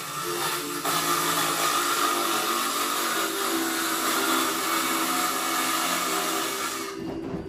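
DeWalt cordless circular saw running steadily as it cuts through half-inch OSB board along a straightedge guide, with a brief dip just before a second in; the motor winds down near the end.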